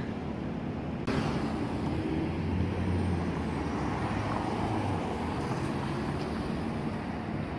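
City street traffic with cars driving past, one passing close near the middle.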